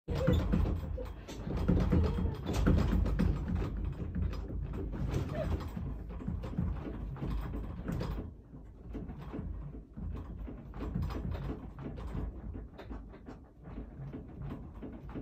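A room shaking in an earthquake: rattling and creaking over a low rumble, heaviest in the first half and then easing off.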